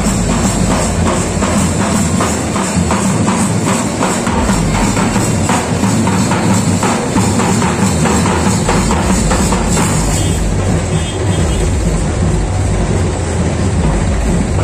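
Procession drum troupe playing loud, rapid drumming.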